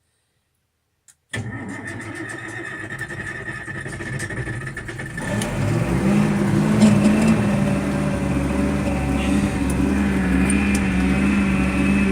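White 2-135 tractor's diesel engine cold-started near freezing after preheating: about a second and a half in the starter cranks it for about four seconds, then the engine catches, climbs in revs and settles into a steady run.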